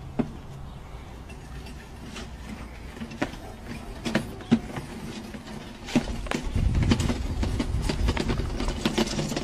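Goats' hooves knocking and scraping on a small plastic-tub yard cart as they climb into it: scattered sharp knocks, then from about six seconds in a louder low rumble with dense rattling.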